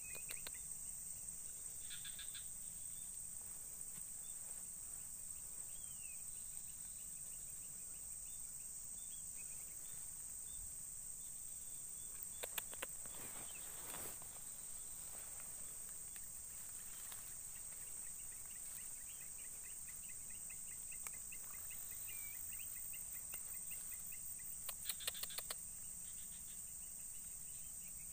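Steady high-pitched chorus of insects in swampy grass, with a bird chirping faintly now and then. A few brief light clicks come about halfway through and again near the end.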